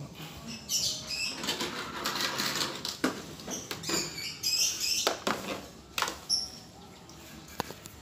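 Rustling handling noise from the phone moving against clothing, with scattered light knocks and clicks.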